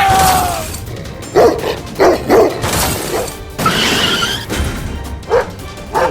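Background music with a falling glide at the start and several short yelps laid over it, about four in all.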